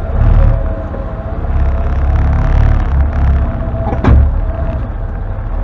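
Can-Am Defender HD10 side-by-side's V-twin engine running at low speed as it crawls over rough trail, swelling and easing with the throttle. There is one sharp knock about four seconds in.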